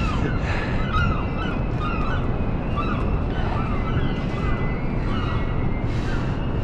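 A flock of birds calling overhead, with many short, repeated calls overlapping one another, over a steady low rumble.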